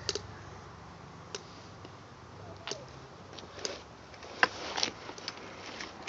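Burning cedar log crackling, with irregular sharp pops and snaps, the loudest about four and a half seconds in.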